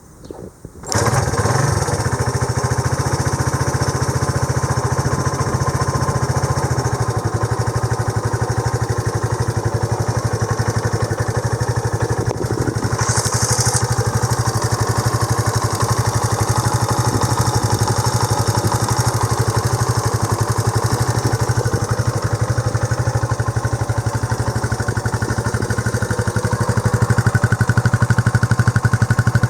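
Honda CB125JX single-cylinder four-stroke motorcycle engine starting about a second in, then idling steadily, with a short hiss about 13 seconds in. This is its first run after a crankshaft replacement, and it runs without the abnormal noise that the worn crank bearing had made.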